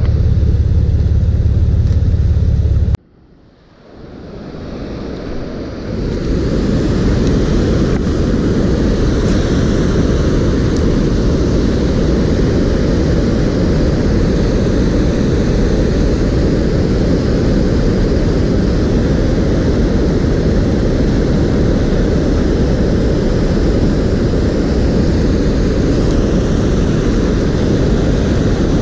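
Steady rushing of river water pouring over a low weir. About three seconds in, the sound cuts out abruptly and fades back in over the next few seconds.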